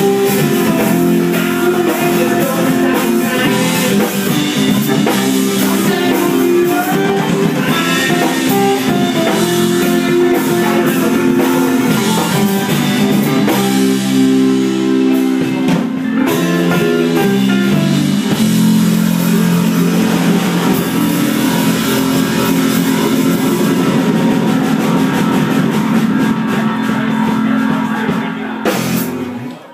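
Rock music with guitar and drums, fading out near the end.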